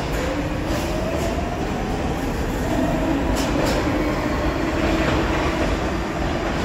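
Kawasaki R62 subway train pulling out of the station. Its traction motor whine rises in pitch over the first couple of seconds and then holds steady, with a few clacks of wheels over rail joints.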